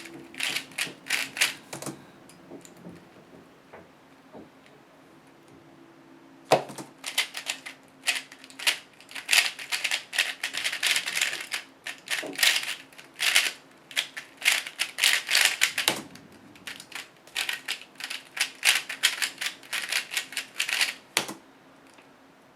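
Plastic 3x3 speedcube being turned fast, a rapid clatter of layer clicks in several bursts with short pauses between.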